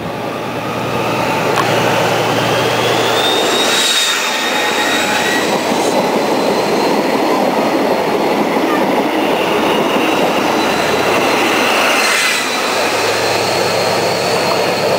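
A Network Rail HST measurement train with class 43 diesel power cars passes at speed: a loud, steady rush of wheels and coaches with a high whine over it. A low engine hum is heard as the leading power car goes by near the start and again as the rear power car passes near the end.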